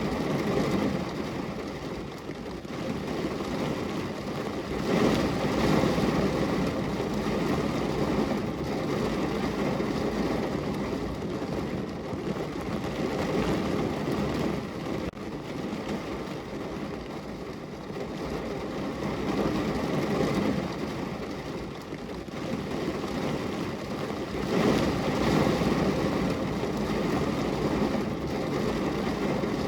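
Heavy rain falling on a car's roof and glass, heard from inside the car as a dense steady hiss and patter. It swells louder about five seconds in and again near the end.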